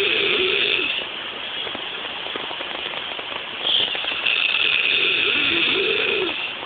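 A person snoring loudly and harshly: one long snore dies away about a second in, then after a quieter breath another snore starts near four seconds and lasts about two and a half seconds.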